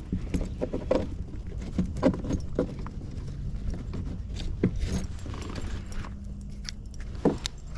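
Metal fishing tackle clinking and rattling in quick, irregular clicks as lures are handled, most likely a replacement spinnerbait being picked out. A low steady hum runs underneath.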